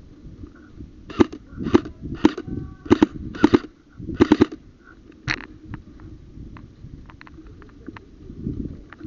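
Airsoft guns firing single shots: about eight sharp cracks over some four seconds, a couple in quick pairs, then fainter, more distant shots ticking on.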